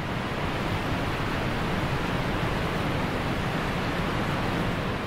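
Wind blowing across the microphone: a steady rushing noise.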